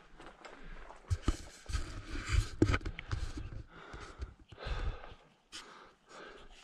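A hiker's boots stepping and scuffing over loose rock, irregular crunching footfalls on a rocky ridge scramble.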